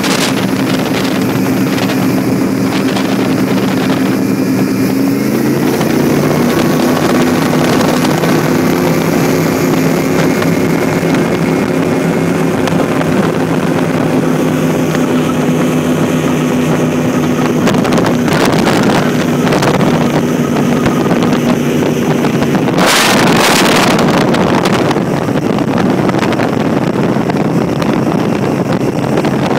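Motorboat engine running steadily at speed, its note stepping up a little about five seconds in, with wind rushing over the microphone. Two louder gusts of rushing noise come about two-thirds of the way through.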